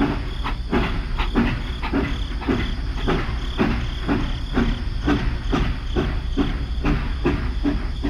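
Toy battery-powered steam locomotive pulling wagons along a plastic track: a steady rhythmic chugging, about three beats a second, over the hum of its small motor.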